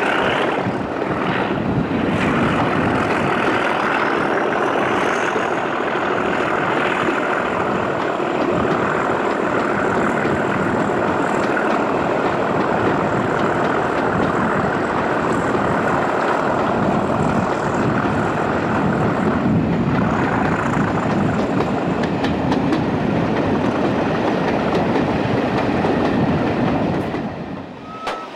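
Class 37 diesel locomotive's English Electric V12 engine working hard under power, heard from an open carriage window close behind it, over wheel and rail noise. A thin high whistle rises a few seconds in, holds steady and fades later. The sound cuts off near the end.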